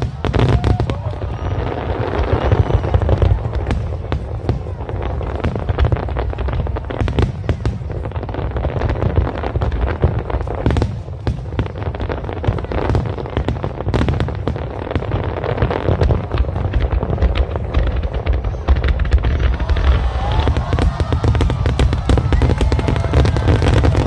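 Fireworks display, with a dense, continuous run of bangs and crackles over deep booms. There is a brief lull about eleven seconds in.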